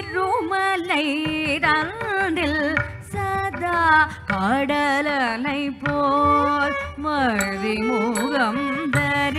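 A Carnatic vocalist sings a slow padam line for Bharatanatyam. The voice sways and slides between notes with heavy ornamentation, over a steady low drone.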